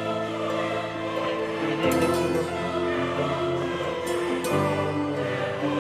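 Background music: sustained chords of held notes, changing about two seconds in and again about four and a half seconds in.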